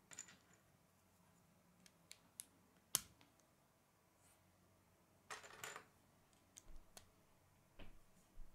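K'nex plastic rods, connectors and gears clicking and clacking as they are handled and snapped together: a handful of sharp clicks, the loudest about three seconds in, and a short clatter of pieces a little past halfway.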